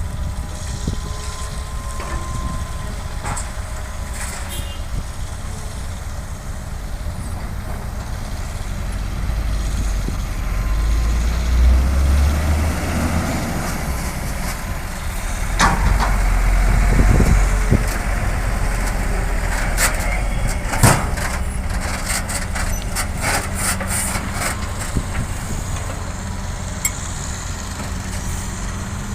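Heavy diesel construction machinery running with a steady low rumble that swells twice under load, then a run of sharp metallic clanks a little past two-thirds of the way through.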